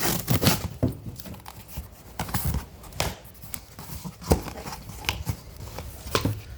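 Irregular hollow knocks and clicks as the plastic parts of a Pigeon electric kettle are handled and set down while it is unpacked.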